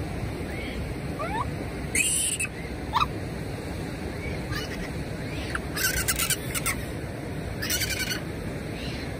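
Japanese macaques giving a few short rising coo calls and several brief harsh, high-pitched squeals over a steady rush of flowing hot-spring water.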